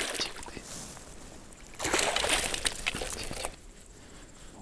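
Water splashing and sloshing as a hooked ide is landed in a landing net: one burst of splashing about two seconds in, lasting about a second and a half.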